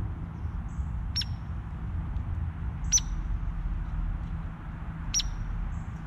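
A bird giving three sharp, high single-note calls, about two seconds apart, over a steady low rumble.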